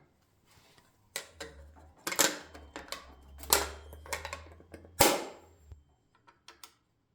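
Typewriter side panel being worked into place by hand: a few knocks and scraping handling sounds, then a sharp snap about five seconds in as the panel goes into its catch. The snap sounds like something cracking, but it is the panel clipping home.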